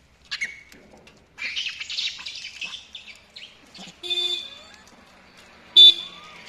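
A motorbike horn gives two short honks, a steady tone, about four seconds in and again near the end, the second one loud. Before them, rhesus macaques crowding for food let out a burst of high squealing and chattering.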